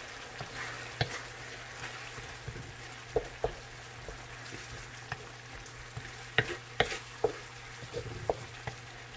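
Sardines cooking in a pan with a steady light sizzle, stirred with a utensil that clinks against the pan several times, loudest near the end.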